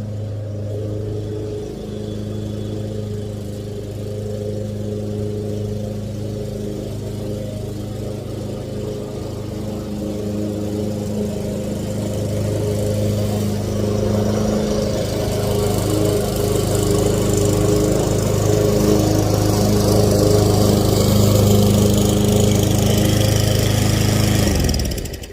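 Lawn mower engine running steadily, growing louder over the second half, then cutting off abruptly near the end.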